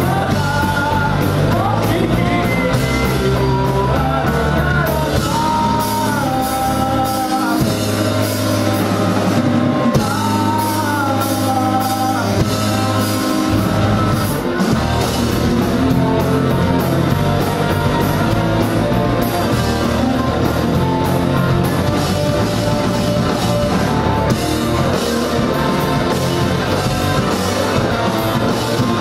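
Live rock band playing: drum kit, electric guitar and a singing voice, steady and loud throughout.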